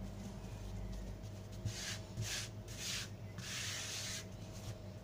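A hand rubbing and brushing flour across a granite countertop, four short scraping strokes around the middle, over a faint steady hum.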